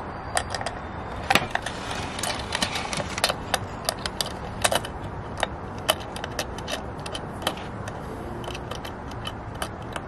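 Light metal chain links and a metal snap clip clinking and rattling as they are fastened, with many irregular sharp clicks.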